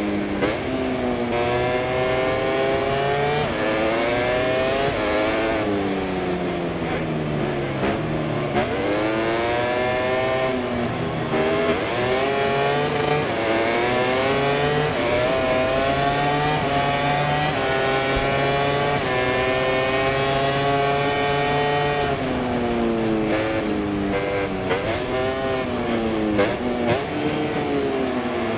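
MotoGP racing motorcycle's four-cylinder engine at race pace, heard from on board. Its note climbs in pitch through each gear and drops sharply several times as it downshifts for corners, most steeply about five and eight seconds in and again near the end.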